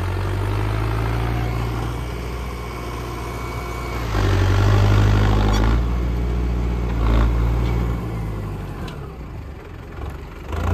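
Farm tractor's diesel engine running under load as it reverses on a slope, its steady hum growing louder for about two seconds from about four seconds in before easing back.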